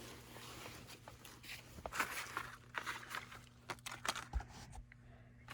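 Faint rustling, crinkling and small clicks of handling and movement, with a low steady hum underneath.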